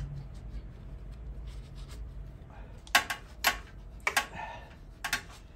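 Sharp clicks and light taps of metal parts being handled while a shop rag wipes around a motorcycle engine, about half a dozen of them in the second half, over a low steady hum.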